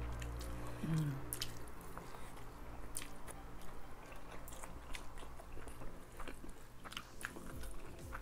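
Close-miked chewing of fried spring rolls (lumpiang shanghai) and roast chicken: wet mouth noises with many sharp little crunches and clicks. A brief hummed 'mm' comes about a second in.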